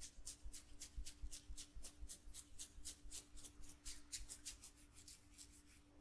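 Fingers rubbing and scratching through long hair against the scalp in quick rustling strokes, about four to five a second, thinning out near the end, over a faint steady hum.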